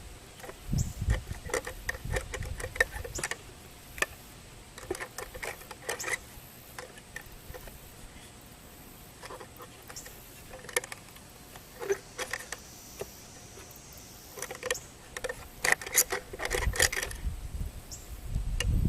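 Scattered clicks, rattles and knocks from handling an old birdhouse while taking it down. They come in bursts with quiet gaps, and there are low thumps near the start and near the end.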